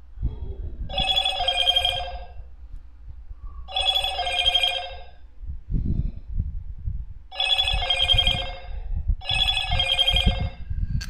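Electronic telephone ringtone ringing four times, each ring a quick warbling pair of tones, the last two rings closer together. Low bumps and rustling of handling noise run underneath.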